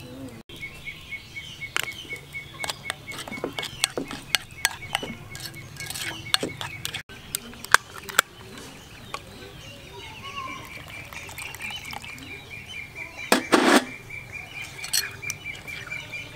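Clicks and taps of hand food preparation: eggshells cracking and a metal spoon knocking and scraping in a ceramic bowl while mixing a batter. Behind it a bird chirps a rapid, high trill at one pitch, and there is a brief loud rustle about three quarters of the way through.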